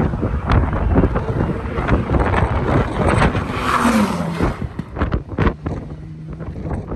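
A rally car at racing speed passes close by, its engine note dropping in pitch as it goes past about four seconds in. Wind buffets the microphone.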